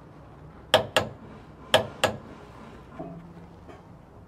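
Torque wrench clicking as it reaches its set torque of about 135 ft-lb on the 3/4-inch radius rod bolts: two pairs of sharp clicks, each pair about a quarter second apart.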